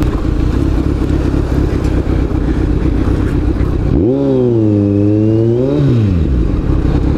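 Kawasaki Z900 inline-four engine running at low speed through a loud aftermarket exhaust, over a steady rush of riding noise. About four seconds in the engine note jumps up, dips, climbs again and falls away as the rider works the throttle at walking pace.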